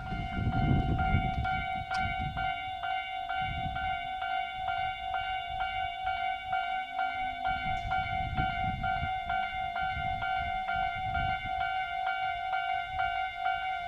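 Japanese level crossing's electronic warning bell ringing steadily in rapid, evenly repeated dings, over the low rumble of a Tobu 500 series Revaty limited express train moving past the crossing.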